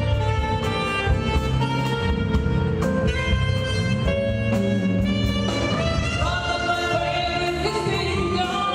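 Live band music with stage piano, drum kit and bass under a melody of long held notes.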